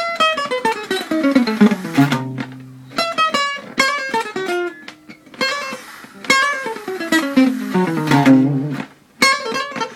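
Acoustic guitar playing fast single-note descending runs in G-sharp harmonic minor, three in a row, each settling on low held notes. There is a short break before more picking starts near the end.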